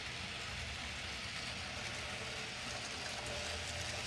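Model steam locomotive pulling a train of hopper cars along layout track: a steady running rumble and hiss that grows a little louder as the engine comes close near the end.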